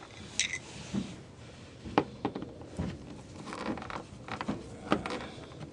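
Scattered light clicks, taps and scrapes of hands handling the plastic splash guard and its clips and hardware.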